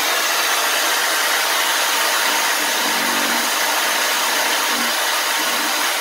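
Corded electric drill with a nail chucked as a makeshift bit, its motor running steadily at full speed with an even whir.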